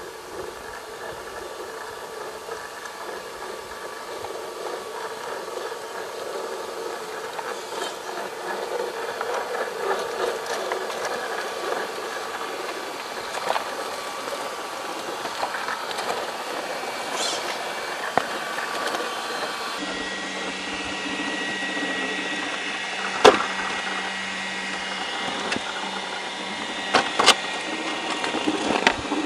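Electric motor and gear train of a 1:10 scale RC4WD Trail Finder 2 rock crawler whining steadily as it crawls over loose rock. Scattered clicks from tyres and stones, with a few sharp knocks in the second half.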